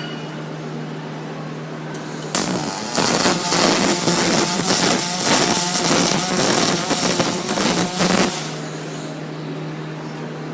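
Welding arc on aluminum square tubing: a loud, crackling hiss that starts about two seconds in and runs for about six seconds before cutting off, over a steady low hum.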